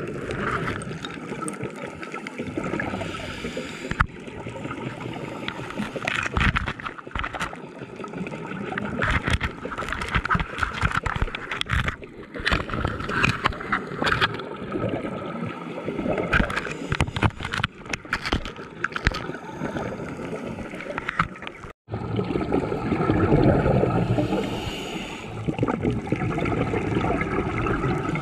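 Underwater sound picked up by a diver's camera: gurgling scuba bubbles over a constant crackle of small clicks. The sound cuts out for an instant about two-thirds through, then a louder gush of bubbling follows for a few seconds.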